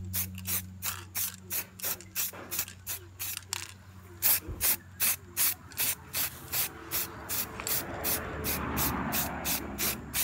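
Aerosol spray-paint can being shaken, its mixing ball rattling in a steady rhythm of about three strokes a second.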